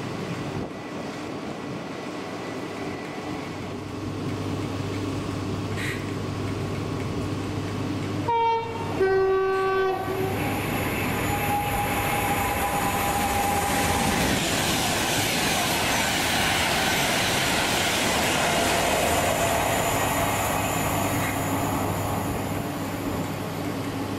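Train horn sounding two notes, a short higher one then a longer lower one, followed by a train passing, its noise building up loud and staying loud for over ten seconds.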